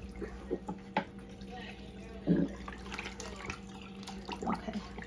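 Brine sloshing and dripping in a plastic bucket as a whole raw turkey is pushed down and turned under the liquid by hand, with a few soft knocks.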